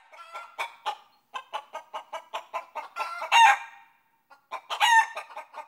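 A chicken clucking in a quick run, about five clucks a second, breaking into a loud drawn-out squawk about three and a half seconds in and another after a short pause near the end.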